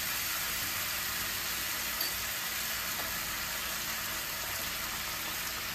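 Cooking oil with ginger paste and freshly added ground coriander and turmeric sizzling steadily in a kadai as the masala fries.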